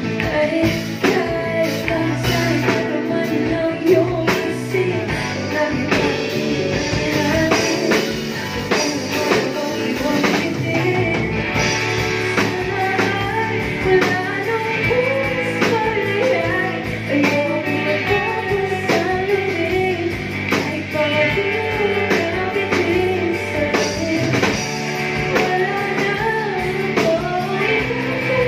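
Live band playing a song: a woman singing lead over electric guitar, electric bass, keyboard and drum kit.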